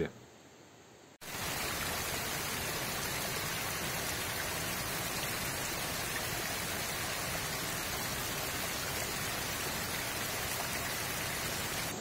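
Small mountain stream splashing down over rocks: a steady rushing of water that cuts in suddenly about a second in.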